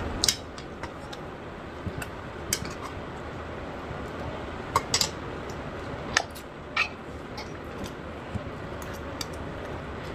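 Eating at a meal of noodles and crab: scattered sharp clicks and taps of utensils and food handling, the loudest a little under five seconds in and twice more a couple of seconds later, over a steady low hiss.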